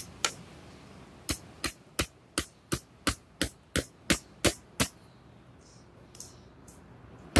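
Hammer driving an orange-topped tent stake into the ground: one strike, then a steady run of about a dozen sharp blows at roughly three a second, stopping about five seconds in.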